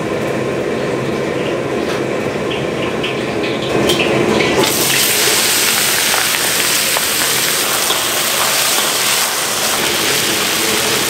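Restaurant kitchen wok cooking: a steady burner roar with scattered light clinks. About four and a half seconds in, a loud, even sizzling hiss starts suddenly and holds, as ingredients hit the hot wok.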